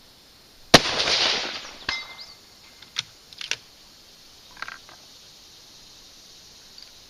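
A single rifle shot from a 6.5 Creedmoor bolt-action with a muzzle brake, loud and sharp with a long echo rolling away. About a second later the bullet's impact on the 300-yard target comes back as a sharp crack with a brief ring, the delay being the sound's travel time back from the target. A few quieter clicks follow.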